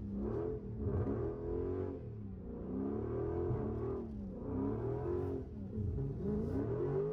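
Dodge Charger Scat Pack's 392 HEMI V8 revving up and down several times as the car, stuck in deep snow on summer tires, tries to drive out.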